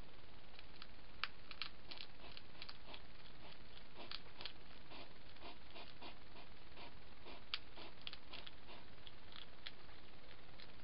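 Hedgehog foraging at a feeding bowl: small irregular clicks and crackles, a few sharper ones among them, over the steady hiss of a trail-camera microphone.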